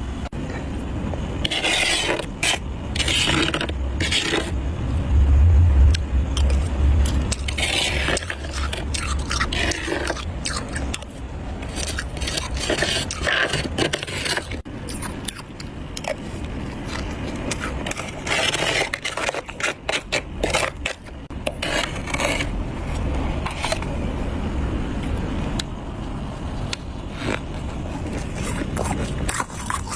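Metal spoon scraping built-up frost in repeated strokes of uneven length, over a steady low hum.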